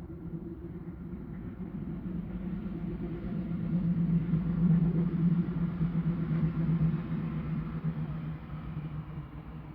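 A vehicle passing by: a steady low hum that swells to its loudest about five seconds in and then fades.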